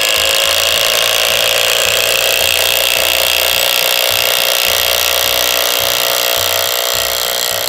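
HiKOKI WH12DD 10.8 V cordless impact driver hammering steadily as it drives a long 6×120 mm screw into timber. The rapid "dadada" is the tool's impact mechanism striking because the long screw has loaded it with torque.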